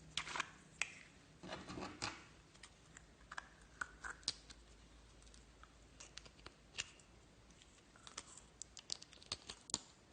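Slime being squeezed and worked by hand, making irregular small clicks, pops and crackles, with quick clusters near the start and again near the end.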